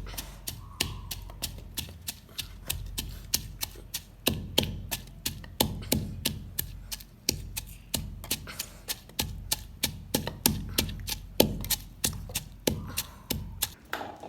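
Rapid, uneven chopping knocks, about four or five sharp strikes a second, with a low rumble underneath.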